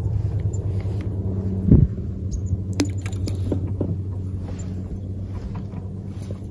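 A steady low engine hum, as of a boat motor running out on the water, slowly fading a little. A dull knock comes about two seconds in, with a few light clicks after it.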